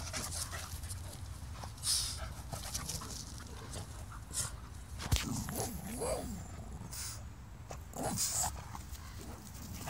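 Boston Terrier barking and whining with a ball held in its mouth, several short calls with the clearest, gliding up and down in pitch, about halfway.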